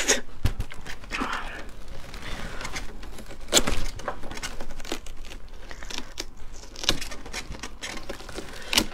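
Ripe watermelon flesh being torn and pulled out of the rind with the fingers: a close run of wet crackling, with a few louder crunching snaps about a third of the way in, near three-quarters and at the very end.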